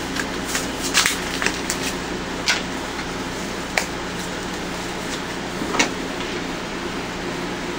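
A steady mechanical hum with a handful of light, sharp clicks and taps from small parts being handled, the strongest about a second in and again near six seconds.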